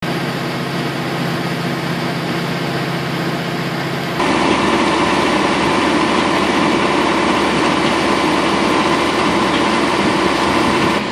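Tractor engine running steadily at about 1850 rpm while standing still, heard from inside the cab. About four seconds in it changes abruptly to louder, steady machine noise of the tractor and the Penta vertical TMR mixer running.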